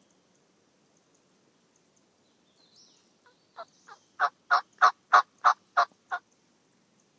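A run of about nine turkey yelps, about three a second. They start a few seconds in, grow louder through the middle and ease off slightly on the last notes.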